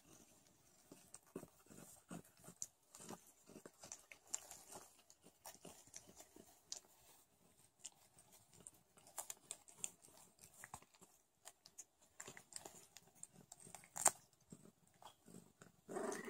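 Sphynx cats licking and grooming a newborn kitten: a quiet string of soft, wet smacking and clicking sounds, with one sharper click near the end.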